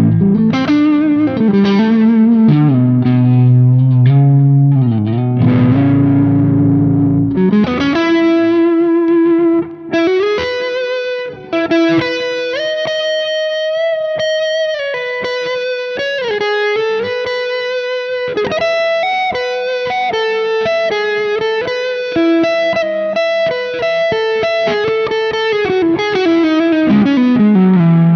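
Ibanez Universe UV7P seven-string electric guitar played through an amp. It opens with low, ringing chords for about seven seconds, then moves into a single-note melodic lead with bends and vibrato, ending on a note bent down and back up.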